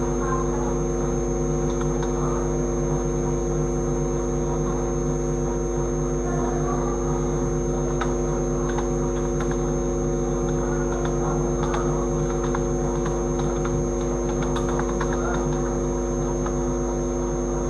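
Loud, steady electrical mains hum and buzz, with several low tones stacked together and a thin high whine above them, carried over an online video call's audio.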